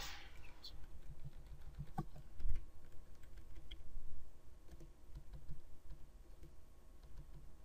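Typing on a computer keyboard: a run of irregular key clicks as a string of zeros and spaces is keyed in.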